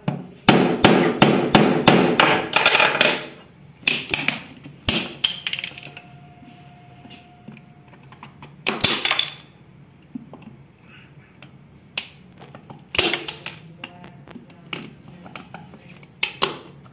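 Hammer striking the handle of a screwdriver wedged into a coconut shell: a fast run of about a dozen blows over the first three seconds, then single blows a few seconds apart as the hard shell is worked open.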